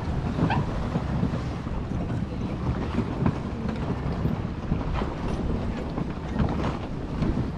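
Wind buffeting an action camera's microphone: a steady low rumble, with a few faint ticks.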